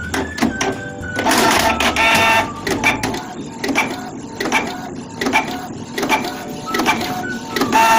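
Canon PIXMA iP2770 inkjet printer running a nozzle-check print: the paper-feed and print-head carriage motors whine in short passes among a run of sharp clicks as the sheet is drawn through and fed out. The louder whines come about a second in.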